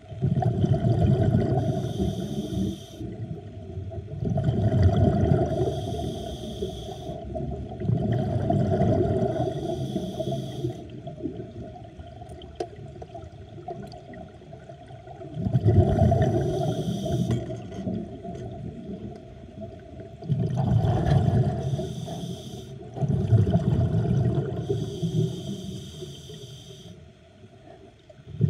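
Scuba diver breathing through a regulator underwater: bursts of exhaled bubbles rumbling and hissing past the microphone about every four to five seconds, with quieter inhalations between them, over a steady hum.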